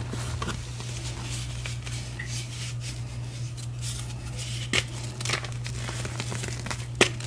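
Reformed gym chalk being crumbled in the hands: soft crunching and crackling of powdery chalk, with a sharp snap a little past the middle and a louder one near the end as pieces break.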